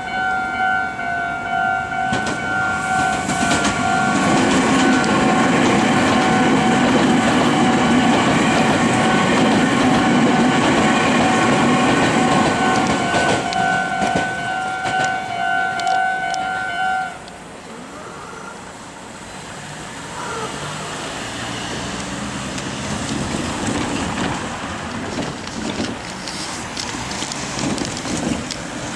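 A Japanese level crossing's warning bell rings in a steady repeating two-tone pattern while a Meitetsu electric train runs through the crossing, the train's rumble lasting about ten seconds. About seventeen seconds in the bell stops, leaving quieter, uneven road-traffic noise.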